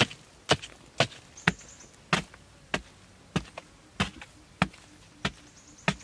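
Hand digging tool striking hard, dry soil in the bottom of a pit, in a steady rhythm of sharp blows a little under two a second.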